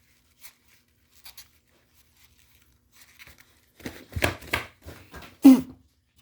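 Faint scattered clicks, then a couple of seconds of irregular knocking and clattering as things are handled, ending in one louder knock with a short ring.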